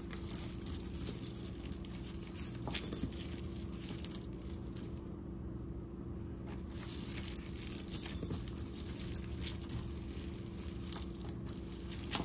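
Metal costume jewelry jangling and clinking as it is picked through by hand: bunches of light rattles with quieter gaps between them.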